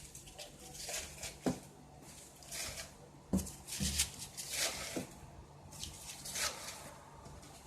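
Folded paper slips rustling and crinkling as they are handled and put back in a cup, with a few light knocks.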